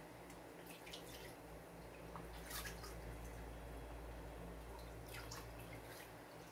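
Water dripping and lightly splashing in a plastic basin as a foot is washed by hand, a few faint drips and splashes over a steady low hum.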